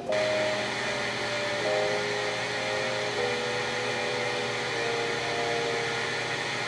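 A steady machine whir with a low hum, under soft background music of long held notes that change every second or two.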